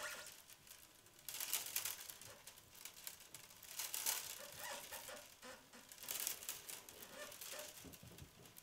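Willow rods rustling and scraping against each other and the woven wicker as hands weave them into a basket, in irregular scratchy bursts.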